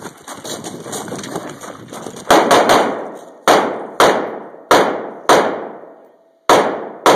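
Footsteps crunching on gravel, then a string of about nine gunshots fired in quick succession, some in close pairs and others a little over half a second apart. Each shot is a sharp crack with a fading echo.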